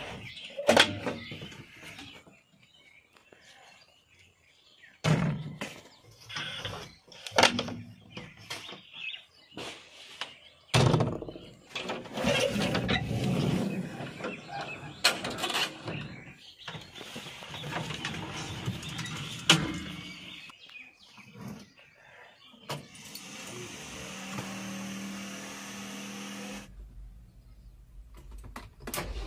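Clicks, knocks and rattles of a JCB 3DX backhoe loader's cab door latch and handle being worked and an operator climbing into the cab. A steadier sound follows for a few seconds near the end.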